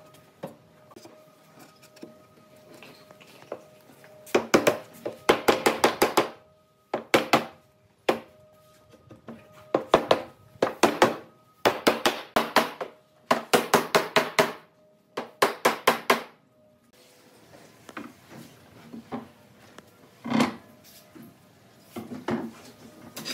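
Hammer blows on a scrap-wood tapping block, knocking a wooden cabinet top down onto its frame. The blows come in quick runs of about five sharp knocks a second, six runs in all, followed near the end by a few lighter, scattered knocks.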